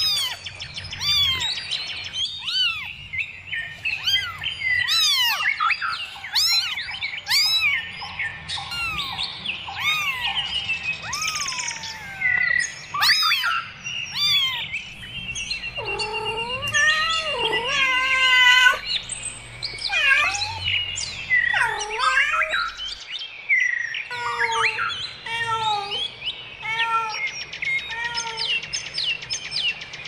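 Small birds chirping and whistling almost without pause, with a trill partway through. A cat meows several long, drawn-out meows around the middle.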